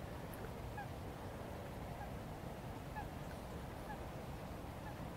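Distant waterbirds giving short, faint rising calls about once a second, over a steady low rumble.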